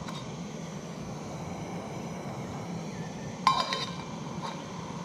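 OEX gas camping stove burning with a steady roar as it boils water, and a single sharp, ringing clink of metal cookware about three and a half seconds in.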